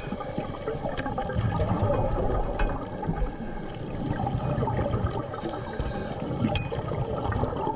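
Underwater sound on a coral reef: a diver's exhaled air bubbles gurgle, loudest between about one and a half and three seconds in, over a dense steady crackling with a few sharp clicks.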